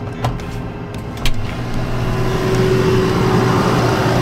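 Tractor engine running, heard from inside the cab, while tree branches brush and knock against the cab. Two sharp knocks come about a quarter second and just over a second in, followed by a louder rustling of leaves against the cab.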